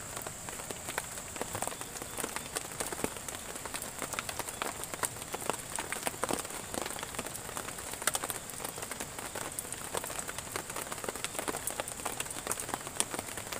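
Steady rainfall, with many individual drops pattering irregularly throughout over an even wash of noise.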